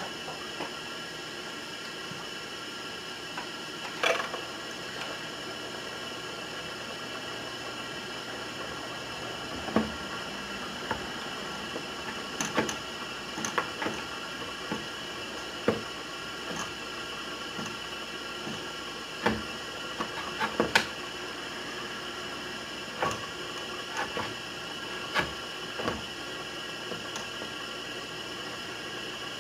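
A steady electrical hum made of several even tones, typical of aquarium equipment plugged back in, with scattered light clicks and knocks from handling gear around the tank.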